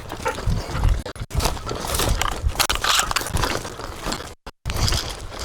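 Irregular crunching footsteps on dry, gravelly ground, broken by a brief moment of total silence near the end.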